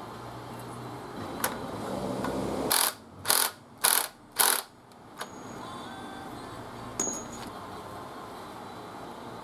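Four short, loud hissing bursts about half a second apart, like pressurised gas being let out, with a few sharp clicks before and after over a steady low hum.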